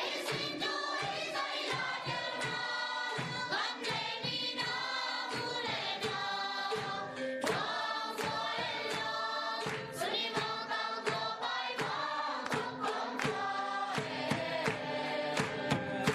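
A roomful of people singing a song together, with sharp percussive beats keeping time, heaviest near the start and the end.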